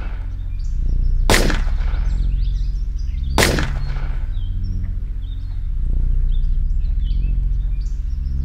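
Two pistol shots about two seconds apart, each ringing out briefly, over a low droning music score, with birds chirping faintly.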